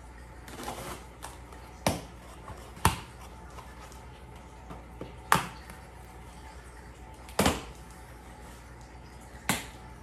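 Cardboard box being cut open with a handheld cutter: five short, sharp snaps and knocks spread a second or two apart.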